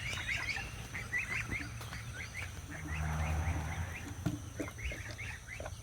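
Cornish Cross meat chicks peeping: many short, scattered high peeps. A low rumble swells briefly about three seconds in.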